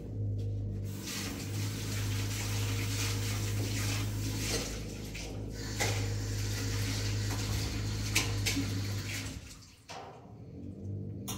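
Water running or splashing steadily, over a constant low hum, and stopping about a second and a half before the end.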